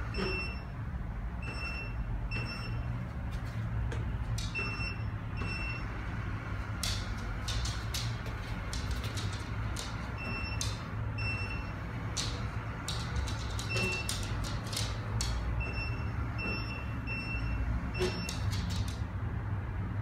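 Kalley robot vacuum cleaner running with a steady low hum. Short high beeps repeat every second or two, with scattered sharp clicks throughout.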